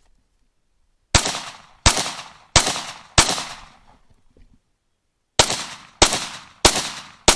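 Eight pistol shots in two strings of four, each string paced at about two-thirds of a second per shot, with a pause of about two seconds between them while the shooter drops from standing to kneeling. Each shot is followed by a short echoing tail.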